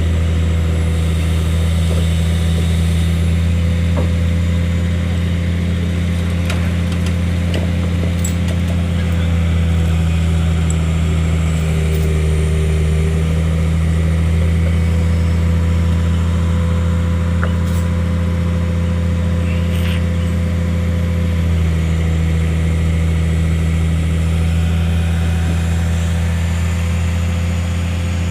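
An engine idling steadily, a low even drone that does not change, with a few faint clicks over it.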